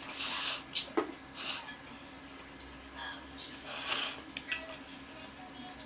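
Instant pancit canton noodles slurped into the mouth in noisy bursts, the loudest at the start and another about four seconds in, with a few light clicks in between.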